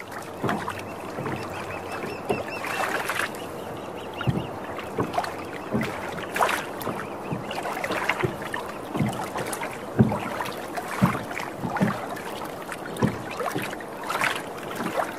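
Wooden rowboat being rowed on a river: irregular knocks of the oar against the boat, about one a second, over the steady wash of water.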